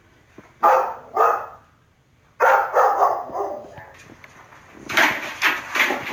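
A dog barking: two loud barks about half a second apart near the start, then a run of barks a little before the middle and another run near the end.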